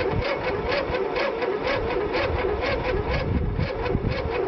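Electric starter cranking a Simplicity lawn tractor's two-cylinder engine without it firing. It makes a steady rhythmic chug of about four to five beats a second, and the starter's whine speeds and slows with each stroke. The unevenness comes from one cylinder with good compression and one with poor compression.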